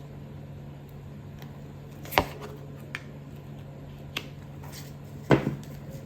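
Tarot cards being handled, with a few short sharp snaps and taps of the deck, the loudest about five seconds in, over a steady low hum.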